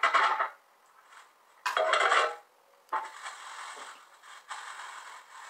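Aluminium foil crinkling as a foil-wrapped piece of food is handled and opened. There is one louder crackle about two seconds in, then steady softer rustling.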